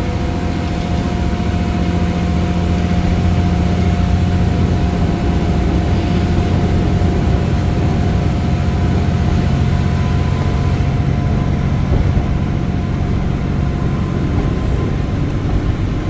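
Limited express Hamakaze diesel train under way, heard from inside the passenger cabin: a steady, loud low engine and running drone with a thin whine above it.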